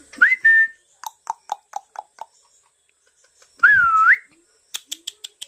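Pet parrot whistling and clicking: a whistle that rises and then holds, a run of about six short clicks, a second whistle that dips and rises again, then a quick run of higher clicks near the end.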